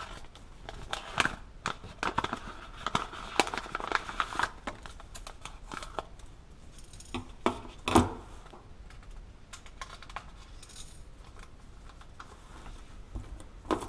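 Scissors snipping through a paper seed packet and then its inner paper sachet, with paper rustling and crinkling between the cuts. A single sharp knock comes about eight seconds in, followed by quieter rustling as the sachet is opened.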